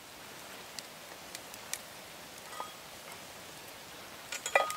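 Cast iron lid of a Petromax mini Dutch oven being set on the pot near the end: a few sharp metallic clinks with a short ring. Before that, only a low steady hiss with a few faint ticks.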